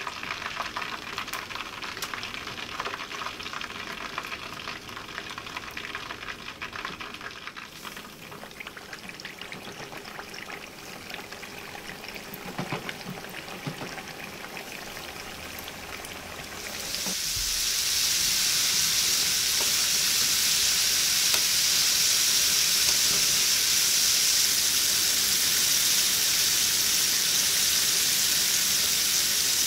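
Chicken frying in hot oil, crackling and popping. About 17 seconds in it turns suddenly into a much louder, steady, hissing sizzle.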